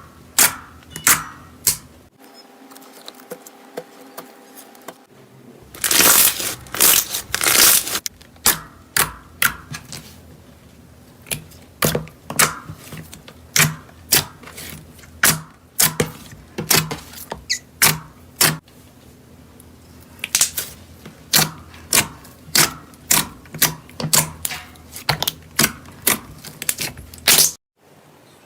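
Slime being squeezed and pressed by hand, making a run of sharp, wet clicking pops, about one or two a second. The sound changes abruptly a few times.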